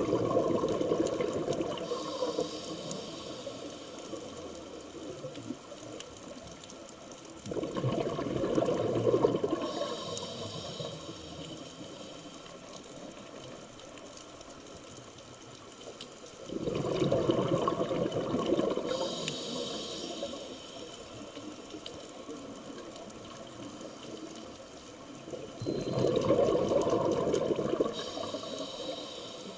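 Scuba diver's exhaled breath bubbling out of the regulator underwater: four bursts of bubbles, each two to three seconds long and about eight to nine seconds apart, with a quieter steady background between them.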